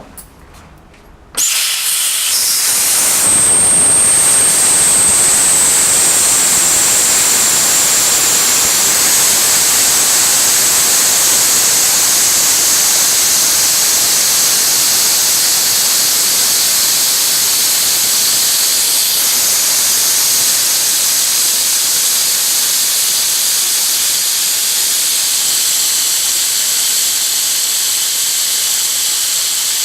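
Compressed air hissing out of a Hitachi Bebicon 1.5P-9.5V air compressor. It starts suddenly about a second and a half in and holds steady, with a thin high whistle over the hiss.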